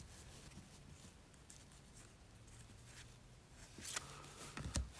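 Quiet handling of football trading cards: mostly near silence, then a few soft clicks and rustles near the end as cards are slid and flicked from one hand to the other.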